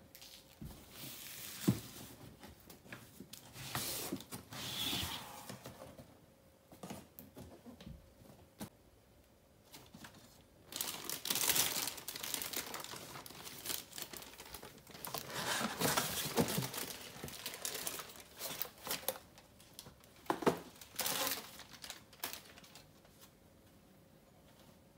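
Cardboard bike box being opened and plastic wrapping crinkling and rustling as it is pulled off a carbon road-bike frame. The sound comes in uneven bursts with a few sharp knocks and dies down a few seconds before the end.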